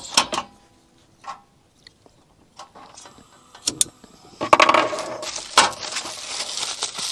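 Scattered small metallic clicks and knocks, then from about four and a half seconds in a loud, uneven crinkling rustle of tin foil being handled.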